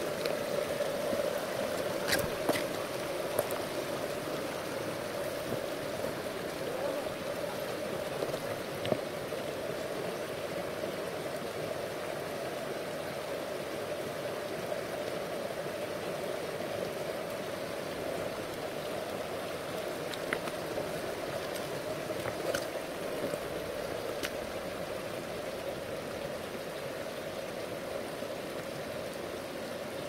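Shallow mountain stream running over rocks, a steady rush of water through small riffles, with a few faint clicks here and there.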